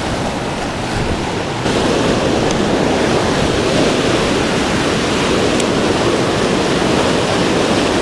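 Whitewater of a river waterfall rushing, a loud steady roar that grows louder about two seconds in.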